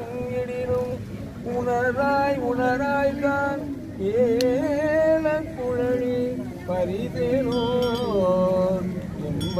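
Men's voices chanting a devotional hymn in a melodic recitation, holding long notes that waver up and down, with short breaths between phrases.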